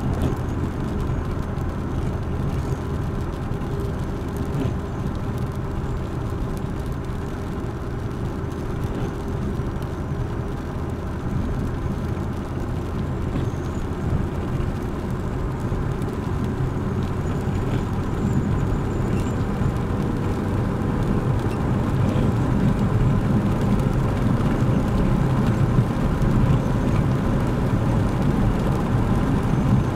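Suzuki Jimny driving on the road: steady engine and road noise, with the engine note slowly rising and the sound growing louder in the second half.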